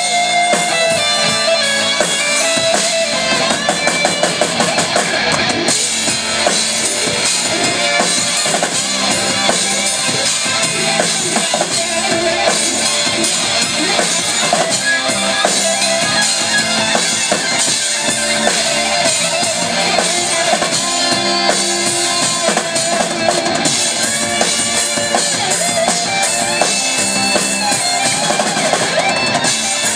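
Live rock band playing an instrumental passage: electric guitar over drum kit, bass guitar and keyboards, continuous and loud with no singing.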